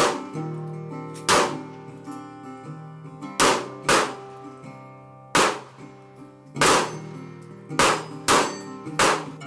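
Pistol shots fired at steel targets, about nine sharp cracks at uneven intervals, each with a short ringing tail, over background music.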